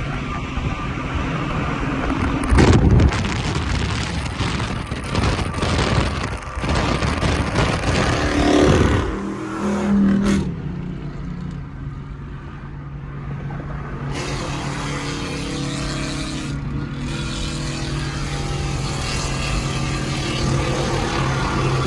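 Car engines revving and running, with loud surges of engine noise through the first ten seconds, the loudest a few seconds in. After that a steadier engine drone holds.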